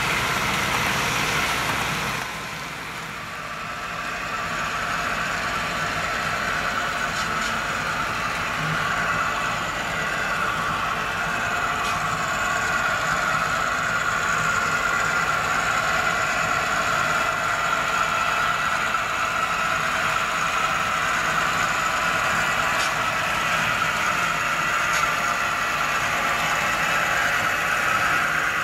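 HO scale model freight train led by three diesel locomotive models, running steadily around the layout: a continuous engine-like drone with a steady high whine. The low rumble drops away about two seconds in, then the sound builds back and holds steady.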